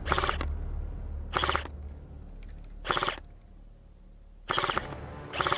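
Airsoft rifle firing five short bursts, each a quick rattle of rapid shots, spaced roughly a second or so apart.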